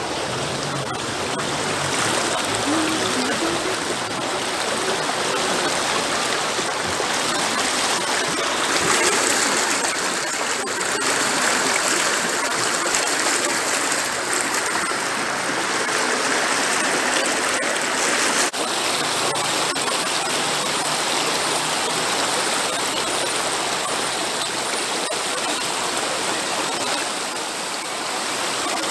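Shallow rocky river flowing over stones: a steady murmuring rush of water. The sound shifts abruptly about two-thirds of the way through.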